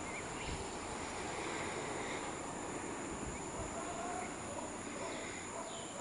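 Outdoor tropical ambience: a steady high insect hum, with a few faint, brief bird chirps.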